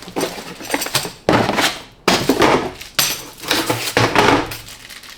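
A series of sharp knocks and clatters, about one a second, each with a short ring after it.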